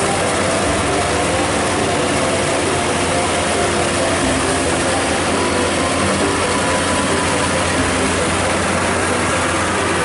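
Maxxi Bimo 102 rice combine harvester running while it cuts and threshes the crop: a loud, steady engine and machinery noise.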